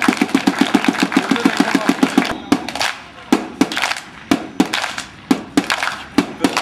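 A fast, even run of sharp strikes, about ten a second, over a hiss for the first two seconds, then slower single strikes every half second or so.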